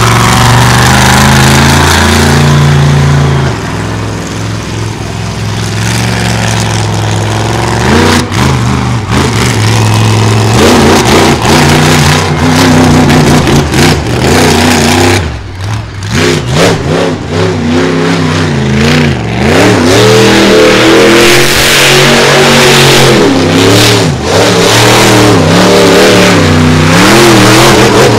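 Monster truck engine revving hard, its pitch climbing and falling again and again, with a quieter spell a few seconds in and a brief drop about fifteen seconds in.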